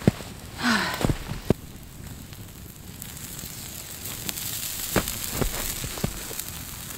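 Small campfire crackling and hissing, with a few sharp knocks and clicks of wood and utensils, the loudest right at the start.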